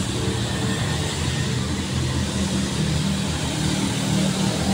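Steady low rumble of motor-vehicle engine noise with a held low hum.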